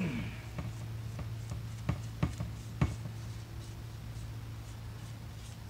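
A paintbrush rubs paint onto a steel truck front-end part, with three sharp taps a little after two seconds in, over a steady low hum.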